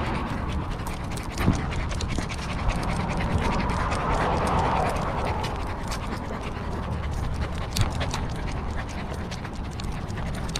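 A corgi panting right at a collar-mounted microphone, with many small clicks and rustles throughout.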